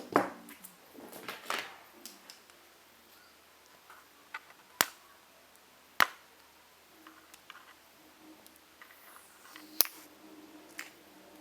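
A few sharp, isolated clicks and taps a second or more apart, with quiet room tone between them.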